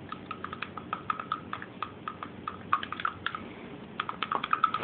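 Blue plastic spoon stirring in a small cup, clicking and scraping against the sides in quick, irregular taps, several a second, as frozen brine shrimp is mixed into water to dissolve.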